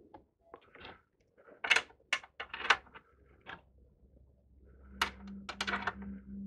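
Irregular clicks and knocks of hands working small hardware at a test bench: test leads, clips and the tester's controls. A low, wavering hum comes in about five seconds in.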